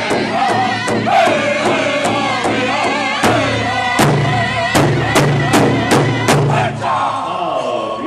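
Powwow drum group singing in unison over a large hide drum beaten together with sticks in a steady beat. About four seconds in the strikes come harder, and the drumming and song end about seven seconds in.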